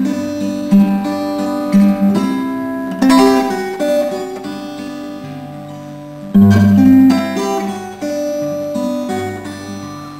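Solo acoustic guitar doodling: loosely picked notes and strummed chords, each ringing and fading, with a loud strum about six seconds in.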